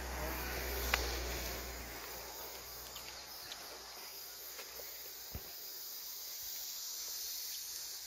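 Steady high-pitched chorus of summer insects, with a low rumble fading out over the first two seconds and a single short click about five seconds in.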